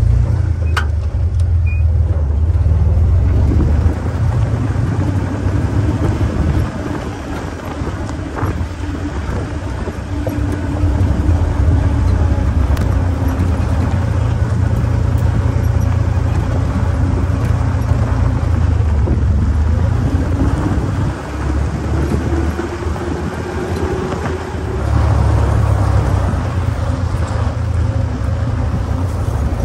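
1944 Willys Jeep's four-cylinder flathead engine running steadily as the jeep drives down a dirt trail, under a heavy low rumble; the engine note wavers slightly and the sound eases off for a few seconds twice, about a quarter of the way in and again past two-thirds.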